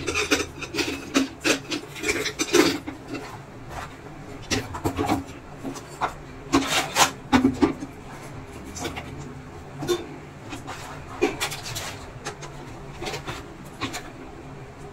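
Hands handling the parts of an opened induction cooktop, its circuit board, heatsink and copper coil, on a wooden workbench: irregular clicks, rubs and scrapes in clusters with pauses between, loudest at the start and about seven seconds in.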